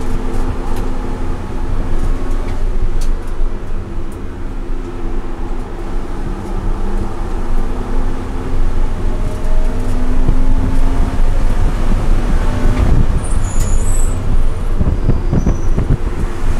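BMW E90 330i's straight-six engine pulling steadily at around 4,000–4,500 rpm, with tyre and wind noise, heard from inside the cabin. It gets louder about two-thirds of the way through.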